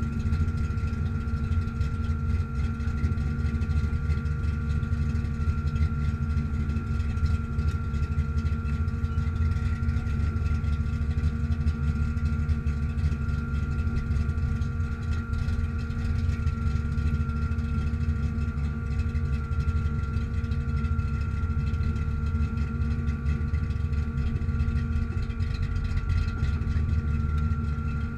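Ford Mustang engine idling steadily at an even speed.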